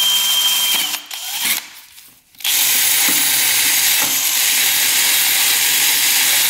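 Cordless drill spinning a small wire wheel brush against the splined kickstart shaft of a 1967 Yamaha YL1 engine, scrubbing off rust and grime to show whether the splines are stripped. It runs with a steady scratchy whirr, drops away for about a second and a half after the first second, then starts again and runs steadily.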